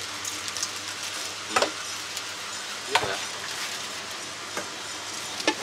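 A spoon scraping and clinking as seasoning is scooped from plastic tubs and a steel mixing bowl of cut fruit. There are three sharp clinks, spaced about a second and a half apart, over a steady hiss.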